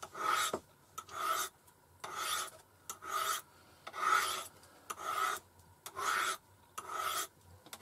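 Knife blade drawn down a honing rod (musat), eight even scraping strokes at about one a second.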